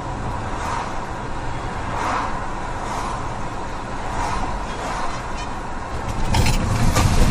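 A car driving, with a steady rumble of engine and road noise that grows louder near the end.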